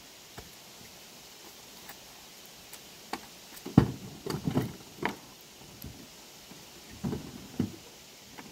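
Dull knocks and thumps of gear being set into a Wenonah kevlar canoe: the loudest about four seconds in, a few more over the next second, and two more near the end.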